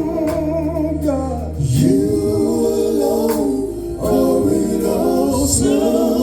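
Live gospel singing: a male group in close vocal harmony holding long, wavering notes over sustained bass notes and a light beat.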